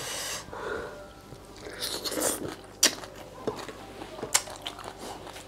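Close eating sounds of someone sucking and crunching on pieces of blue swimming crab: slurping hisses near the start and about two seconds in, and a few sharp clicks later on.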